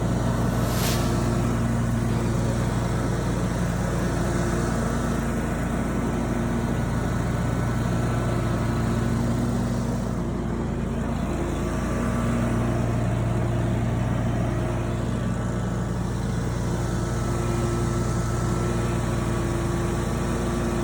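Scag Freedom Z zero-turn mower's Kawasaki V-twin engine running steadily, freshly serviced with new oil and filter, dipping slightly about ten seconds in.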